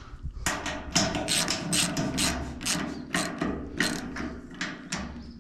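Ratchet wrench clicking rapidly, about four to five clicks a second, as a nut is run down onto a threaded stud, fading toward the end.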